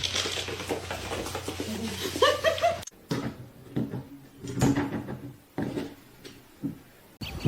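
A cat meows once, briefly, over a steady low hum; after a sudden cut come scattered light knocks and rustles.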